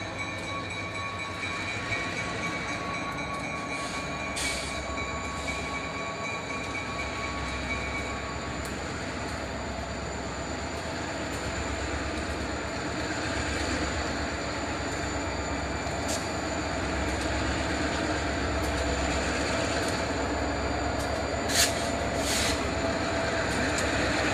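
Diesel freight locomotives approaching and passing slowly, their engines rumbling and growing louder as they near, with wheels squealing on the rails. A steady ringing tone stops about eight seconds in, and two sharp high squeals come near the end.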